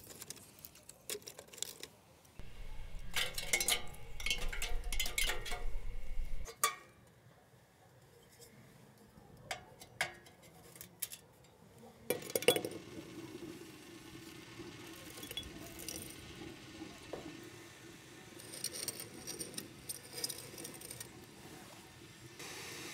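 Pine cones clattering into a metal samovar and clinks of its metal fittings and glassware, densest a few seconds in. From about halfway there is a steady low hum with a faint hiss as the pine-cone fire burns in the samovar.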